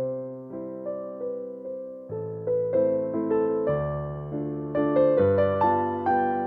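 Background music played on piano or electric piano: struck chords and notes that fade away, at a gentle pace.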